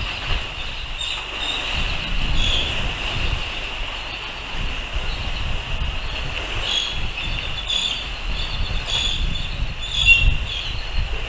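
Strong wind buffeting the microphone in uneven gusts, with a steady high-pitched whine and scattered short high squeaks over it.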